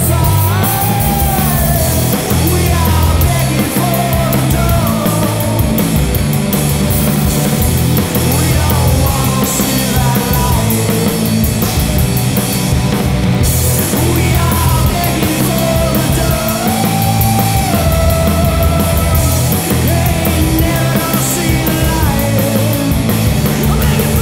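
Loud punk rock song: a singer's voice over a full band with drums and cymbals, playing on without a break.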